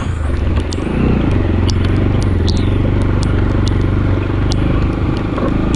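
Motorcycle engine running at a steady pitch while riding slowly over a muddy, rutted dirt trail, with frequent short clicks and clatter throughout.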